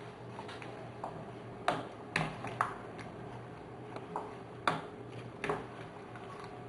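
Wooden spoon stirring apricot halves in a stainless steel pot, knocking now and then against the metal: a scatter of short sharp clicks and knocks, about a dozen, the loudest around two seconds in and near five seconds.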